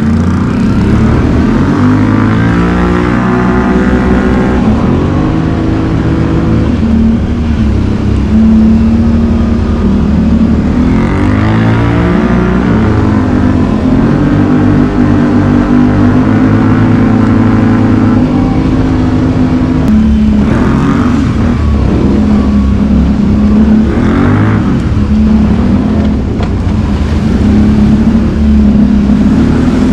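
ATV engine running loud on the trail, its pitch rising and falling again and again as it revs up and eases off.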